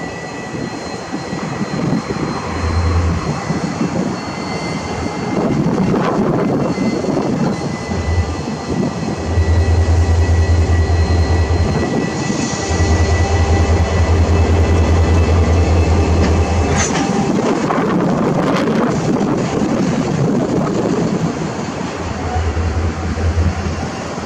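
Southern Shorthaul Railroad diesel locomotive RL304 hauling a ballast train slowly past, its engine running, followed by loaded ballast hopper wagons rolling by on the rails. Heavy wind buffeting on the microphone comes and goes through it.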